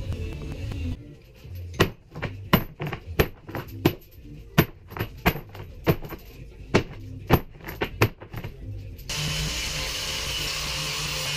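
A rusty steel chain slapped again and again onto pine boards to distress the wood: about a dozen sharp, irregular clanking strikes. Near the end an electric orbital sander starts and runs steadily on the boards.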